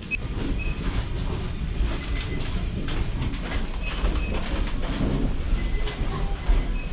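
Airport boarding-corridor ambience as passengers walk to the plane: a steady low rumble with clattering footsteps and a few short high beeps.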